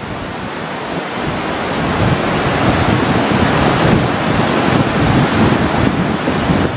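Fast-flowing floodwater of a swollen river rushing past, with wind noise on the microphone. It grows a little louder about two seconds in.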